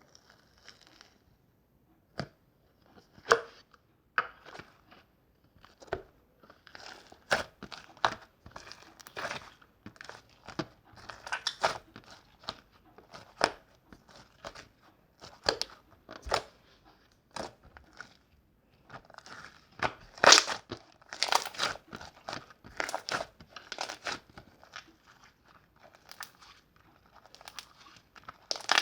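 Slime being squeezed and pressed by hand, making irregular crinkly crackling with sharp clicks, loudest about two-thirds of the way in.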